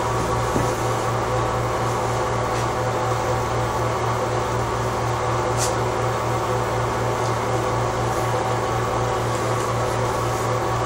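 Steady hum of a small motor with a strong low tone, unchanging throughout, with a couple of faint ticks.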